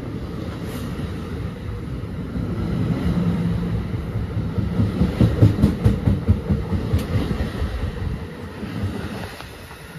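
NJ Transit double-deck passenger coaches rolling past, their steel wheels clattering over rail joints in a quick, uneven rhythm over a low rumble. The clatter is loudest about halfway through and fades near the end.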